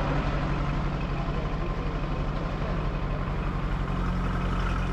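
Heavy truck's diesel engine running steadily.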